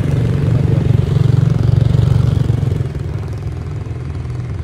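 Small motorbike engine running close by, a steady low rumble that is louder for about the first three seconds and then eases off a little.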